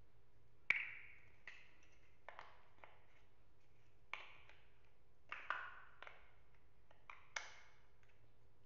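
Chunky plastic building blocks clicking and knocking together as they are handled and pressed onto a plastic baseplate: about a dozen separate sharp clicks, the loudest just under a second in.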